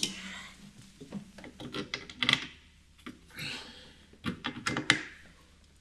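Scattered clicks and light knocks as a car's windscreen wiper arm is handled and fitted onto its spindle on the plastic cowl, with a few brief rustles in between.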